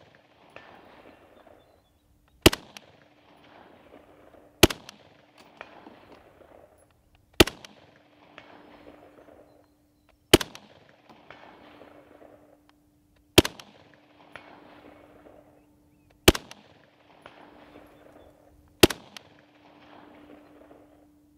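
Steyr AUG rifle firing 5.56 mm rounds one shot at a time: seven shots about two to three seconds apart, each followed by a rolling echo that fades over a second or so.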